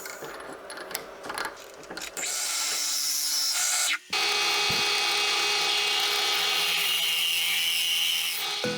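A power tool running steadily, working on wood, after a couple of seconds of scattered clicks and knocks. It cuts out briefly about four seconds in, then runs on until just before the end.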